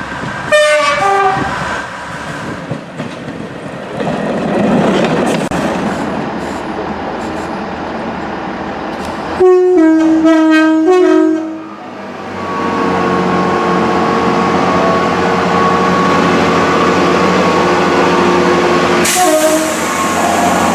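British passenger trains sounding two-tone horns, high then low, with the running noise of a passing train between the blasts. There is a short blast near the start, a long loud one about halfway through, and another short one near the end.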